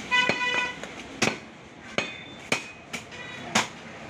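Butcher's cleaver chopping beef on a wooden log chopping block: about five sharp chops, a second or so apart. A brief pitched tone sounds during the first second.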